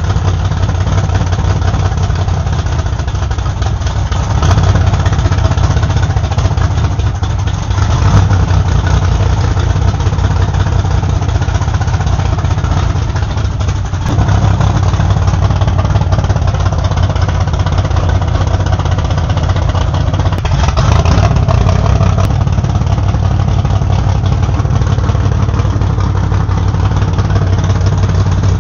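Alcohol-burning Chevy 350 small-block V8 of a modified dirt stock car running at a steady idle, revved briefly a few times, about four seconds in, eight seconds in, fourteen seconds in and near twenty-one seconds.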